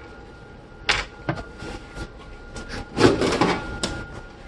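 Computer parts being handled: a series of clicks and knocks, with a burst of clattering about three seconds in, over a faint steady high-pitched tone.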